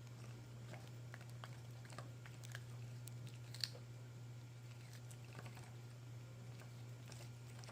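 A kitten chewing vegetable peels: faint, irregular crunching clicks, with one sharper click about three and a half seconds in, over a steady low hum.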